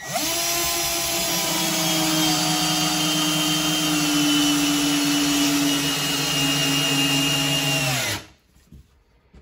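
Cordless drill/driver driving a wood screw with a washer through plywood into a wall stud: a steady motor whine for about eight seconds, its pitch sinking slightly as the load grows, then it stops.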